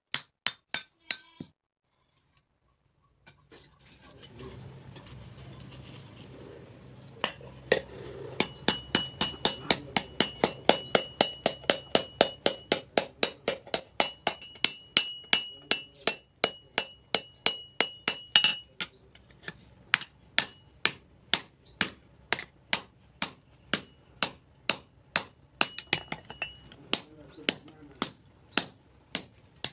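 Hand hammer striking hot steel on an anvil and swage block in a steady run of blows, about three a second, many of them with a ringing metallic note. The blacksmith is forging a meat cleaver and forming its handle socket around a cone. After a short pause near the start, a steady low noise comes up beneath the blows.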